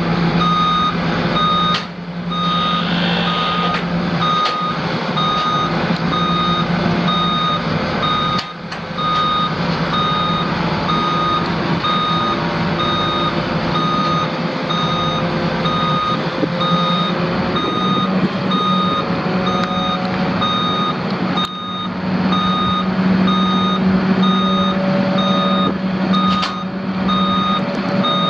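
Backup alarm of a Freightliner FL70 refuse truck beeping in an even, steady rhythm: the truck is in reverse. Its Cummins ISC 8.3-litre inline-six diesel engine runs steadily underneath.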